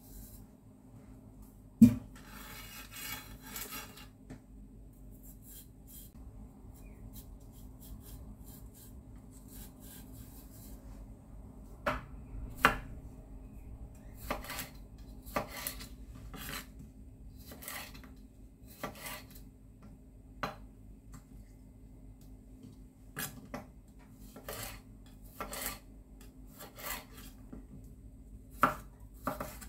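A chef's knife scrapes the seeds out of a halved cucumber near the start. From about twelve seconds in, the knife slices the cucumber into strips, and the blade knocks on a bamboo cutting board roughly once a second. A faint low steady hum runs underneath.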